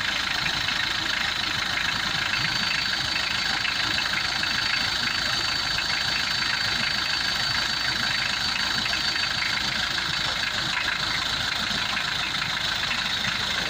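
Mitsubishi 4D56 2.5-litre four-cylinder diesel engine idling steadily, heard from the open engine bay. A thin high whine runs with it for several seconds in the middle.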